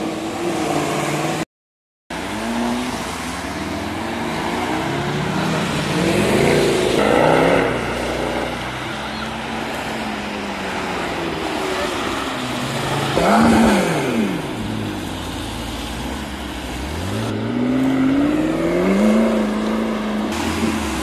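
Cars driving past one after another on a wet road, tyres hissing, with two close pass-bys rising and falling in pitch and an engine revving up as a car pulls away near the end. The sound cuts out completely for about half a second near the start.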